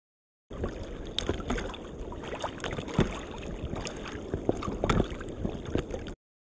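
Water sloshing and splashing around a wading angler, with the camera riding just above the surface, full of irregular knocks and splashes; the sharpest knock comes about three seconds in.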